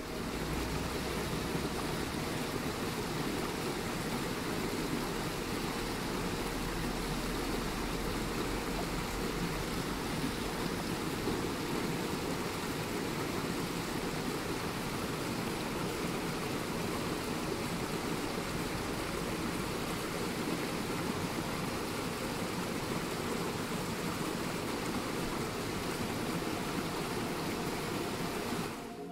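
Forest stream running over rocks: a steady rush of flowing water.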